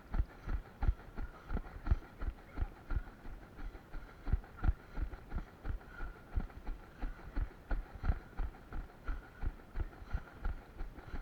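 Steady rhythmic thudding, about three thuds a second, from a person's footfalls or body movement along an obstacle course.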